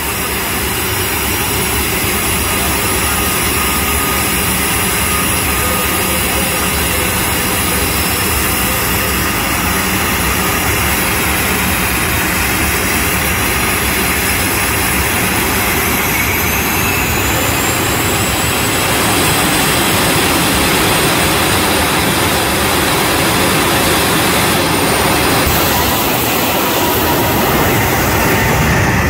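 Jet engine of a jet-powered pickup truck running loud and steady on the drag strip's starting line, with a rising whine partway through. It goes to full power for its run in the last few seconds.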